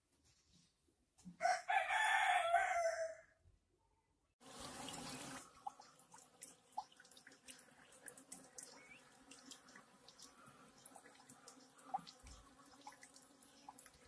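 A rooster crows once, a loud call of about two seconds. After a short burst of hiss, honeybees buzz faintly: a steady low hum with scattered small clicks.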